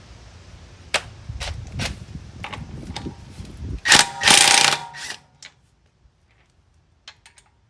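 Wrench and socket working a lug nut, with a series of separate metallic clicks, then a loud rattling metal burst about a second long some four seconds in; after that only a few faint ticks.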